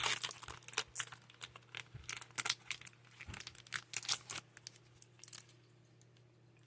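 Foil trading-card booster pack wrapper being torn open and crinkled, a dense run of crackles that stops about five and a half seconds in.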